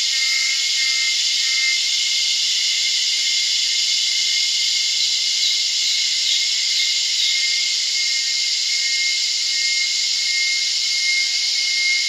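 Cicada chorus: a dense, steady shrill drone with a single high whine riding on it.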